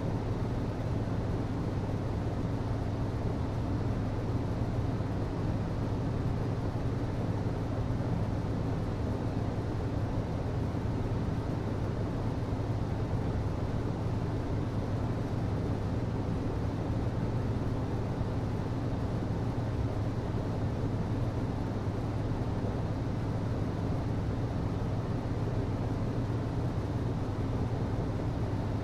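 HVAC system running: a steady, unchanging low hum over an even rushing noise.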